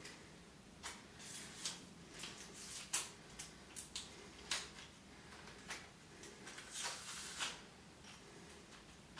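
A light camera tripod being handled: a string of short clicks and scrapes as its telescoping legs are pulled out and their locks worked, ending about seven and a half seconds in.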